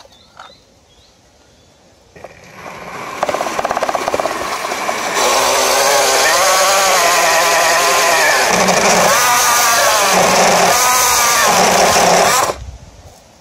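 Evolve GT electric skateboard's belt-driven motors spinning up about two seconds in, then loaded toward stall with the tyre pressed against concrete in a burnout, drawing close to 40 amps. The sound is loud, with a whine that wavers in pitch, and it cuts off suddenly near the end.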